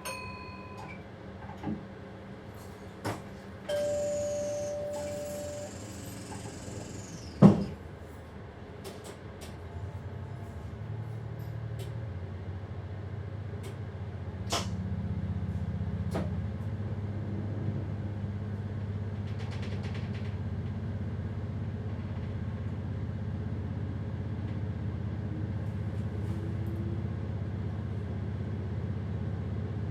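Inside a train driver's cab: short beeps and a two-tone chime, then a hiss ending in a loud thump about seven and a half seconds in, the signals and slam of the doors closing. After that the train's low electric traction hum builds in steps as it pulls away, then runs steadily.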